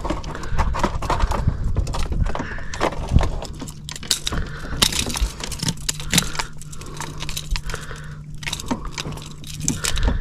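Fishing pliers and hands working a hook out of a jack's mouth, giving scattered clicks, knocks and rustling as the fish shifts in a cloth. A faint low steady hum runs through the middle.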